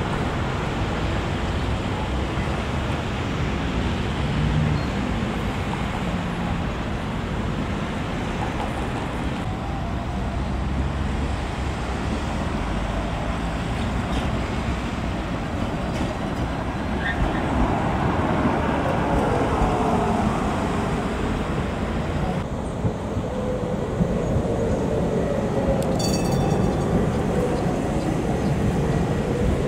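Tram running on its rails: a steady rumble with a whine that rises and falls.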